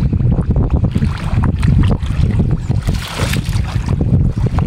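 Hands and arms groping and sloshing through shallow muddy water while feeling for fish, with scattered splashes and a bigger splash about three seconds in. Wind buffets the microphone with a steady low rumble underneath.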